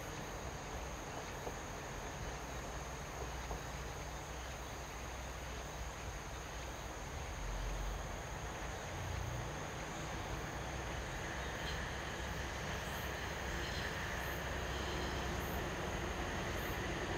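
KiHa 40 diesel railcar approaching in the distance, its engine and wheel rumble growing steadily louder, over a constant high chirring of insects.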